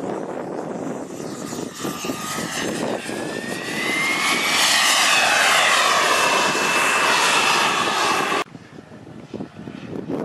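Radio-controlled model jet's engine whining as the jet passes, the whine rising in pitch and growing louder, then holding steady and high. It cuts off abruptly about eight seconds in, leaving fainter, gusty noise.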